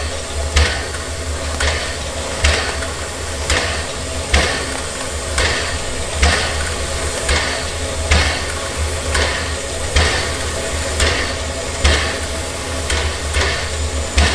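Steam locomotive standing in steam, hissing steadily with a regular knock about once a second, like a steam-driven pump working.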